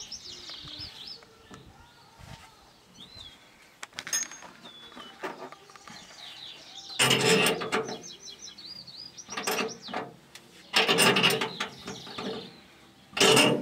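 Birds chirping, short curved calls scattered throughout, broken by four louder bursts of noise about a second long in the second half.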